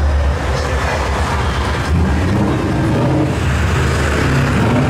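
Car engines running close by with a low, steady rumble, and the noise growing louder near the end as a pickup truck drives past.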